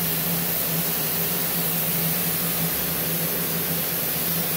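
Powered-on plasma cutter running with its cooling fan, giving a steady hiss over a low, even hum.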